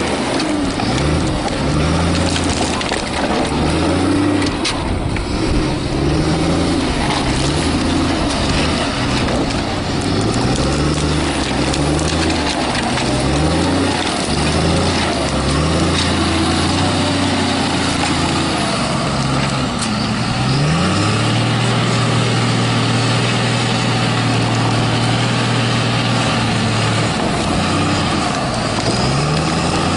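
John Deere 848H grapple skidder's diesel engine revving up and down again and again as the machine works. About two-thirds of the way through it holds a steady higher speed for several seconds, then drops back.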